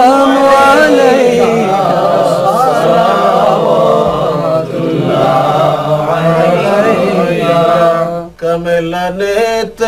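Men's voices singing a devotional salam to the Prophet, unaccompanied, drawing out long wavering notes. The singing breaks off briefly about eight seconds in, then resumes.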